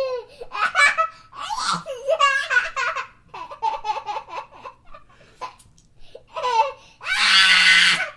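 A young child laughing in repeated bursts of high-pitched giggles, ending in a long, loud squeal of laughter about a second before the end.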